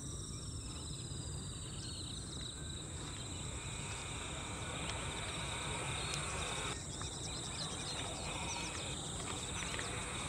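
Steady high-pitched drone of an insect chorus, with a few faint chirps over it.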